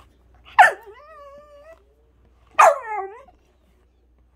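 Bernese mountain dog puppy barking twice, about two seconds apart; the first bark falls in pitch and draws out into a long whine, the second is a short bark that drops in pitch.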